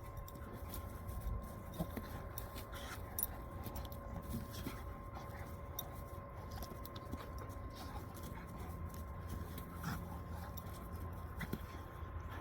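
Two dogs play-wrestling: scuffling and pawing with scattered clicks and knocks, and a few brief dog vocal sounds, over a faint steady hum.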